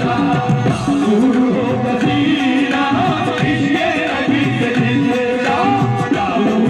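Live qawwali music: harmonium with drums and sung melodic lines, played loud through a stage PA.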